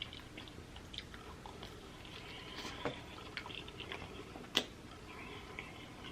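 A person chewing food with wet mouth clicks and smacks, and one sharper click about four and a half seconds in.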